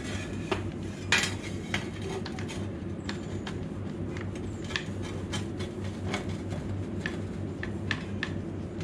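Small metal objects clinking and knocking irregularly as they are handled on a workbench, over a steady low hum.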